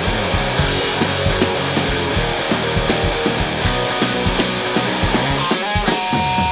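Punk-rock band playing an instrumental intro: driving distorted electric guitars over a fast drum beat, with no vocals yet.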